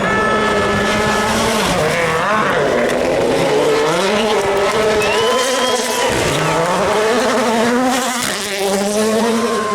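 World Rally Car's turbocharged engine at full stage pace, its revs climbing and dropping again and again through gear changes.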